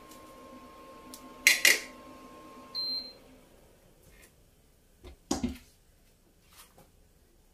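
Household kitchen sounds. A sharp double clatter comes about a second and a half in, and a steady appliance hum cuts off about three seconds in, just after a short high electronic beep. Another clatter follows a couple of seconds later.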